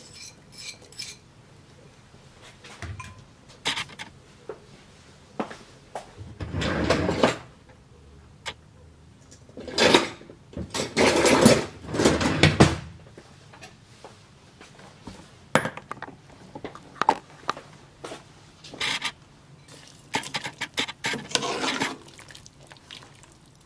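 A utensil clinking and knocking against a cooking pot as vegetables are added to a stew, with scattered short clicks and a few longer scraping, rustling stretches about six, ten and twenty seconds in.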